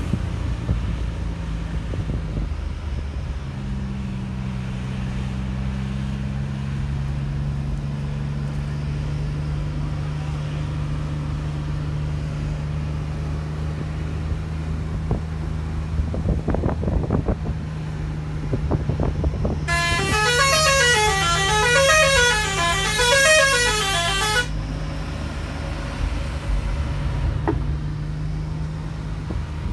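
A bus engine runs steadily, with a loud multi-tone musical horn sounding for about five seconds in the second half. The horn's pitch rises and falls about once a second. A few sharp clatters come shortly before the horn.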